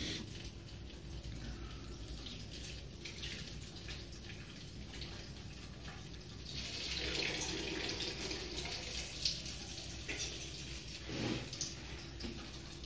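Water running and splashing into a plastic bucket, louder for a few seconds in the middle.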